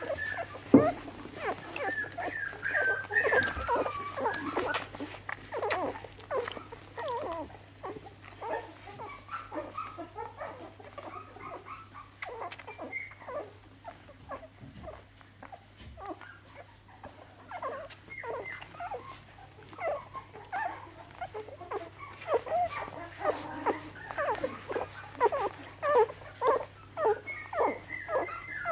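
Finnish Lapphund puppies, a few weeks old, whimpering and squeaking as they nurse, with many short suckling smacks. The high gliding whines are thickest in the first few seconds, and a long run of quick, repeated sounds comes in the last ten seconds.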